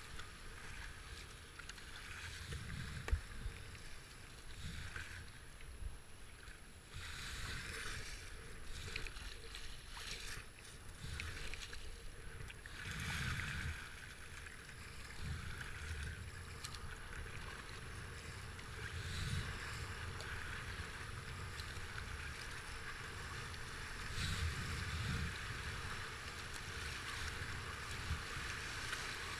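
Rushing whitewater of a flooded river rapid heard from a kayak in the current, with the splash of paddle strokes and an uneven low rumble of wind on the microphone that swells every few seconds.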